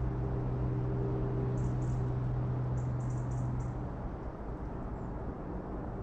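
A steady low hum that dies away about four seconds in, with faint, short runs of high-pitched chirps.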